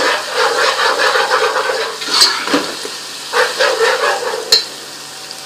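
Sliced onions with garlic-ginger paste sizzling in hot oil while being stirred with a spoon, the spoon scraping through them and knocking sharply on the pan twice. The frying settles to a quieter, steady sizzle near the end.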